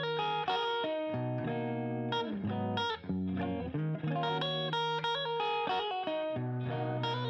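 Intro music led by guitar, playing a run of plucked notes over a steady low line.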